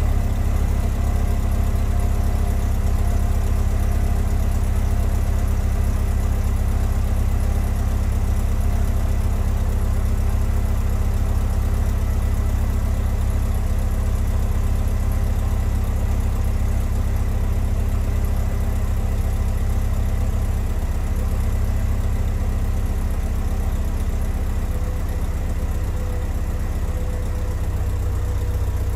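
2004 Mercedes-Benz SLK230 Kompressor's supercharged 2.3-litre four-cylinder engine idling steadily at the exhaust tailpipe, shortly after a cold start.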